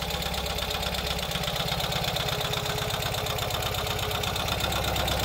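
2023 Ural sidecar motorcycle's air-cooled flat-twin engine idling steadily with even exhaust pulses as it warms up after a cold start.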